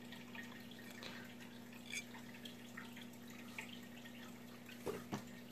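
Quiet room with a steady low hum and a few faint, light clicks of small metal reel parts being handled. A couple of soft short sounds come near the end.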